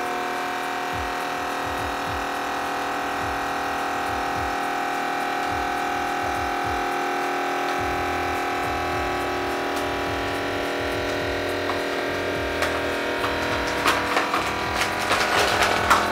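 Vacuum sealer's pump motor running steadily, drawing the air out of a bag of dried purple sweet-potato noodles. In the last few seconds sharp crackling and snapping joins it as the tightening bag crushes the brittle noodles and the suction breaks some of them.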